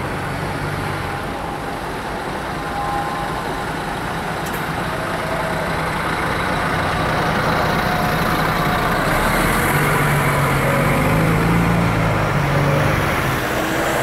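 Articulated city buses and a police van driving past in a convoy, a steady run of engine and tyre noise that swells as a vehicle passes close in the second half.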